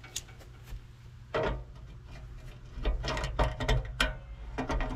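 Vise-grip locking pliers working a rusty nut and bolt on a steel bracket: scattered metal clicks and scrapes that turn into a busy, louder run of clicking and grating from about three seconds in as the nut is turned.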